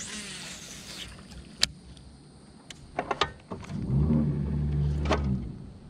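A baitcasting reel during a cast and retrieve: a hiss as the line pays out, a few sharp clicks, then about four seconds in a low, steady whir for roughly two seconds as the line is reeled in.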